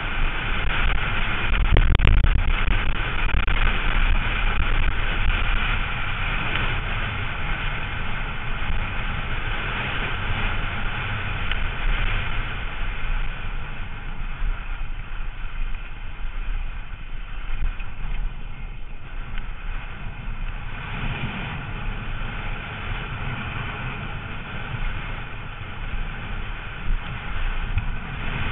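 Wind rushing over the rider-mounted camera's microphone mixed with the rumble of a downhill mountain bike's tyres over loose dirt and gravel at speed. A steady loud rush, with a heavier burst of rumble about two seconds in.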